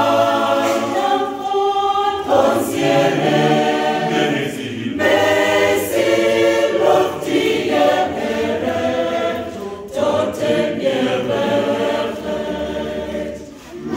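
Mixed church choir of men and women singing, in phrases with short breaks between them.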